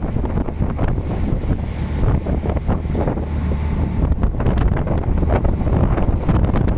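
Wind buffeting the microphone over a continuous low rumble and the wash of waves, aboard a fishing vessel in rough sea.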